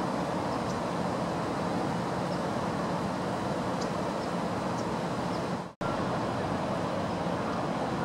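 Steady background rumble of distant road traffic, with a few faint high ticks; the sound drops out for an instant about three-quarters of the way through.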